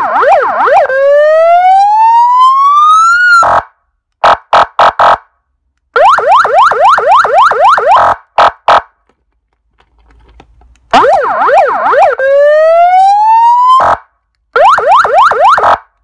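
ES314 150 W four-tone electronic vehicle siren cycling through its tones: a fast up-and-down yelp, a wail that climbs steadily for a few seconds and then cuts off, and a few short horn-like blasts, with pauses between. The sequence begins again about eleven seconds in.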